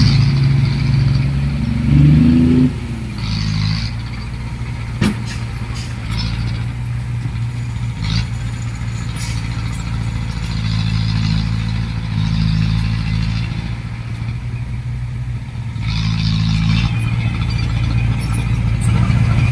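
Heavy diesel engine of earthmoving machinery running, revving up about two seconds in, then dropping back to a steadier run. A single sharp knock comes about five seconds in, and the engine grows louder again near the end.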